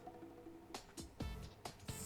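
Soft background music: sustained pitched notes with a few sharp beats.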